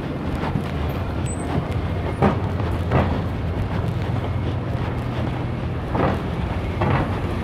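City street traffic noise: a steady low hum of engines and general roar, broken by a few short knocks about two, three, six and seven seconds in.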